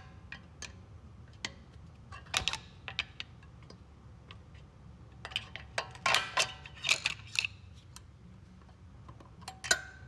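Sharp metallic clicks and clinks as the steel retaining spring on a brake caliper is worked off: a few single clicks, then a dense cluster about six to seven and a half seconds in, some ringing briefly, and one last loud click near the end.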